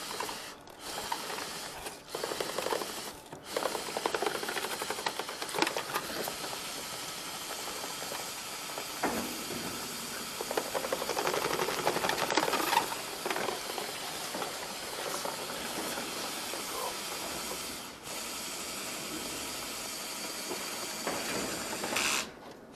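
Dryer-vent cleaning equipment running inside the duct: a steady airy hiss with fine rattling and scraping, which stops shortly before the end.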